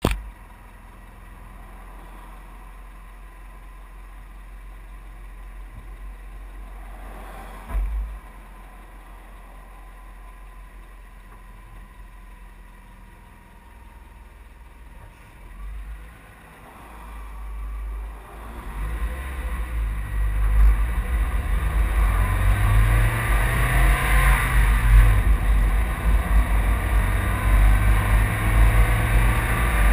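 Vehicle idling with a low steady hum and one short thump about eight seconds in, then pulling away and picking up speed, with engine and wind noise on the front-mounted camera rising and staying loud over the last ten seconds.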